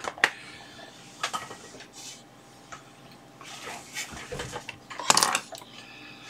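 Handling noise from mains cables and a plug-in power meter being moved about on a silicone bench mat: a few scattered clicks and rustles, with a louder clatter about five seconds in.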